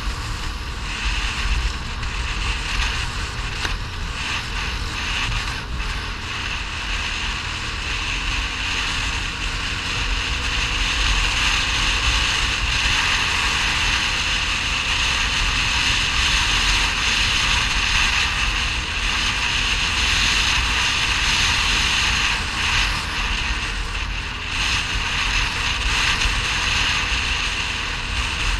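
ATV engine running steadily as the quad is ridden along a dirt track, mixed with wind rumbling on the microphone.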